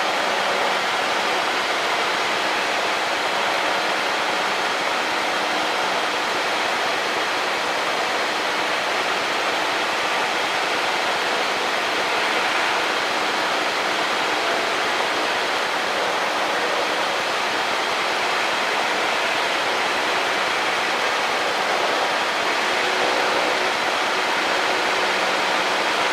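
Steady cockpit noise of a Cessna 152 on final approach: the engine and rushing airflow blend into an even, unchanging hiss.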